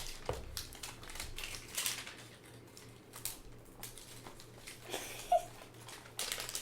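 A hanger box of trading cards being cut open and handled: a run of small irregular clicks, scratches and crinkles, with one brief high squeak about five seconds in.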